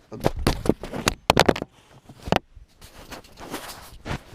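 A Torx T20 screwdriver working the screws of a car dashboard's plastic instrument-cluster trim: a quick run of sharp clicks and scrapes of metal on plastic, then lighter scratching.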